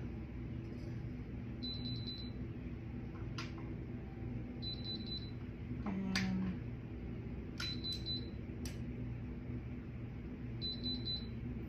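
Mug heat press beeping: a quick trill of short high beeps repeating about every three seconds, the press signalling that it is hot and ready. A few light clicks and knocks come as a tumbler is fitted into its clamp.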